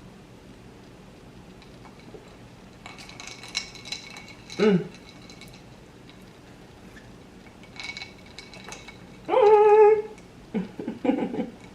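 A woman sipping and swallowing a drink from a glass. About nine seconds in comes a loud, wavering "mmm" of enjoyment, followed by a few short murmurs.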